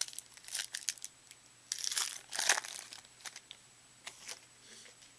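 Trading cards and a foil pack wrapper being handled, crinkling and rustling in irregular bursts, loudest about two seconds in.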